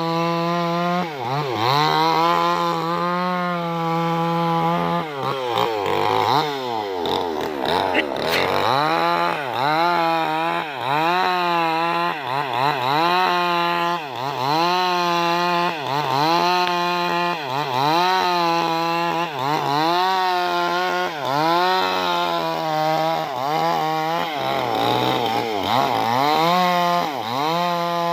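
New West 588 two-stroke chainsaw cutting wood, its engine note dipping under load and climbing back again and again, about every one and a half seconds.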